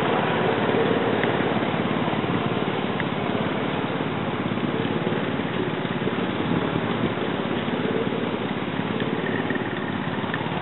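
An engine running steadily, a fast, even chug that fades a little toward the end.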